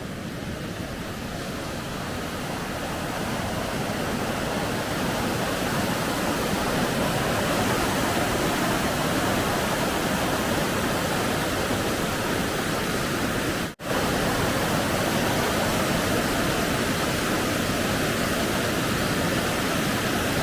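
Groot River in flood, a steady rushing roar of fast floodwater that builds over the first few seconds and then holds, cutting out for an instant about fourteen seconds in.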